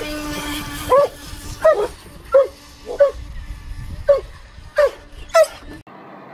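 A dog barking seven times in quick succession, short barks about two-thirds of a second apart, over a faint steady hum. The sound cuts off abruptly near the end.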